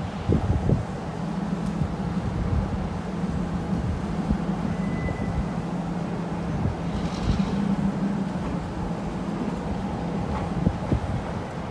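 Steady low drone of a diesel freight locomotive's engine running. A few low thumps come about half a second in.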